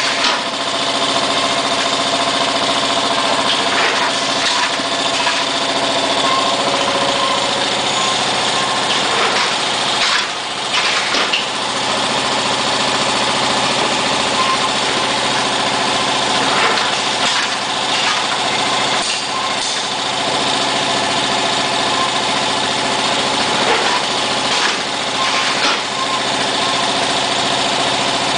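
Automatic carton packing machine running: a steady mechanical hum with many fixed tones, broken by occasional short clicks and knocks.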